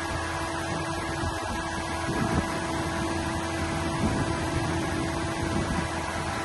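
A steady mechanical hum with a constant whine, over an uneven low rumble of wind on the microphone.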